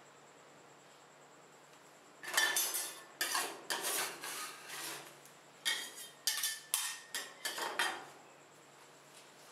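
Steel spatulas scraping and clinking on the stainless-steel cold plate of a rolled-ice-cream station, in a series of about ten short strokes from about two seconds in until about eight seconds in.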